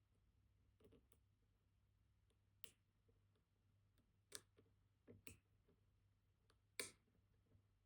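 Faint, sparse clicks of a dimple-lock hook pick and tensioners working the pins of a Vachette Radial dimple lock, the loudest click near the end.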